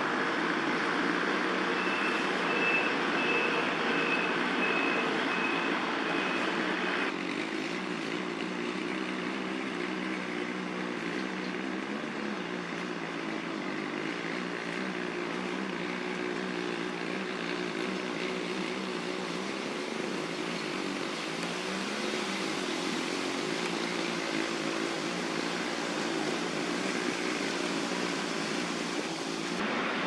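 Steady rumble of city road traffic, with a run of short high pips, about two a second, for a few seconds near the start.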